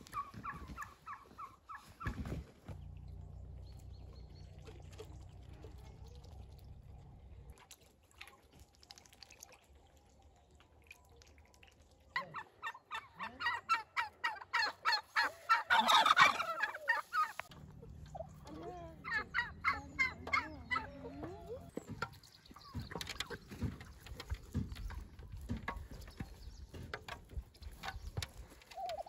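Domestic turkey toms gobbling: a short gobble at the start, then runs of rapid, rattling gobbles through the middle, loudest about halfway through, with more calls near the end.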